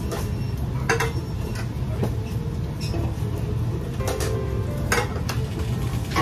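Restaurant kitchen at work: metal pans, utensils and steel food containers clinking and clattering several times over a steady low hum.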